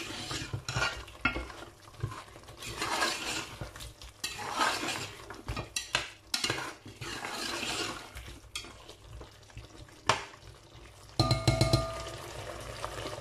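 Spatula stirring and scraping beef and spices frying in oil in a steel pot, with a sizzle under the irregular scrapes: the masala being fried (bhuna) with the meat. About eleven seconds in, a short metallic ring.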